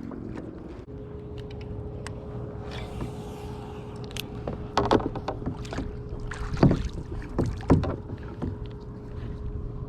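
Knocks and clicks of fishing gear being handled against a kayak's hull, the loudest about five, six and a half, and seven and a half seconds in, over a steady hum that starts about a second in.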